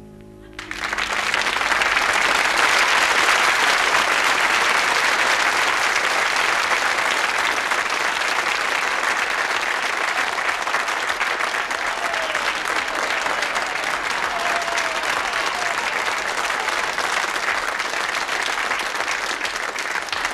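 An audience breaks into applause less than a second in, just as the last piano notes die away, and keeps clapping steadily.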